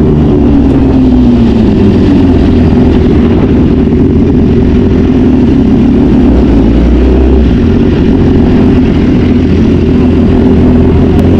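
A BMW engine running hard at speed, loud and steady, its pitch falling over the first two seconds and then holding.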